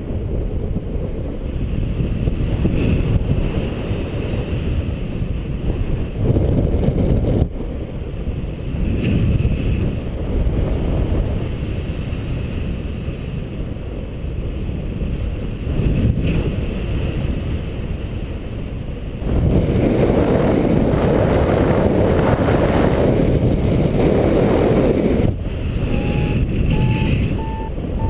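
Wind rushing over a paraglider pilot's microphone in flight, louder from about two-thirds of the way through. Near the end a variometer starts beeping in short tones that step up in pitch, its climb signal for rising air.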